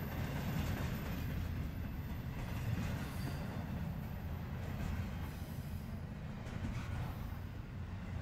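Intermodal freight train rolling past at track speed: a steady rumble of steel wheels on rail, with a few faint clanks in the second half.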